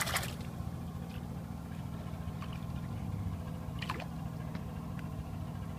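A boat's motor running steadily, with water splashing as an Amazon river dolphin breaks the surface beside the hull at the start, and another short splash about four seconds in.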